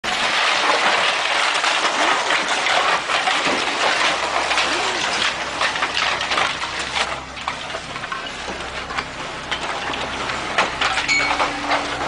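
Old tile-roofed buildings collapsing: a dense run of crashing, clattering debris and roof tiles, heaviest in the first seven seconds and easing off after that.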